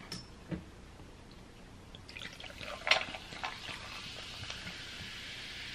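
Water poured from a bottle into a tumbler: a steady pour that starts a little past halfway and goes on, after a few light clicks and knocks.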